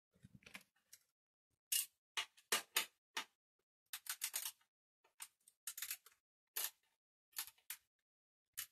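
Irregular light metallic clicks and short scrapes, about a dozen, from hands working the gear cable into a bicycle rear derailleur.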